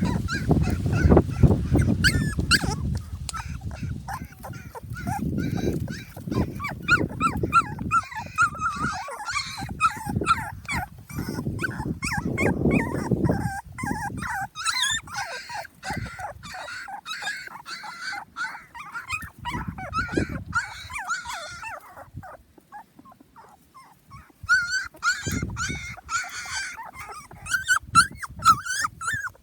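Young puppies whimpering and squealing: many short, high-pitched cries overlapping one another, with low bumping and rustling noise through the first half. The cries stop for a couple of seconds about three quarters through, then start again.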